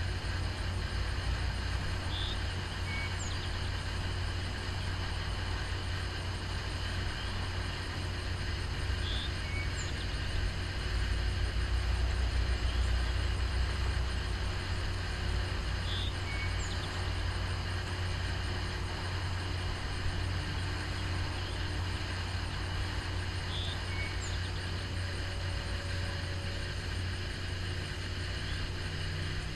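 Distant towboat diesel engines running with a steady low rumble, which swells briefly midway through. A bird gives a short high call about every seven seconds, four times.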